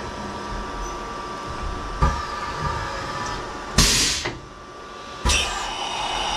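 A CNC mill's automatic tool changer swapping tools over the machine's steady hum: a clunk about two seconds in, a short loud blast of air at about four seconds, and another clunk with a fading hiss just after five seconds.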